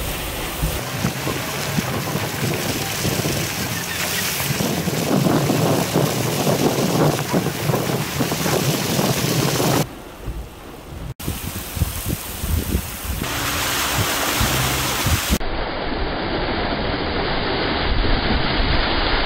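Heavy rain pouring down with strong wind buffeting the microphone. Abrupt cuts follow: a quieter stretch of floodwater running down a sandy wash, then, near the end, a car's tyre splashing through floodwater.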